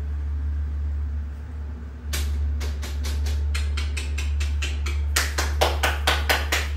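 Rapid, evenly spaced sharp taps, about five a second, starting about two seconds in and growing louder near the end, over a steady low hum.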